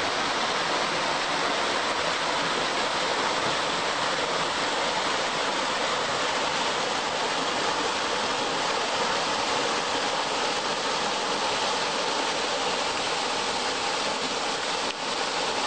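Small waterfall pouring off a rock face and splashing into a shallow pool: a steady rush of falling water.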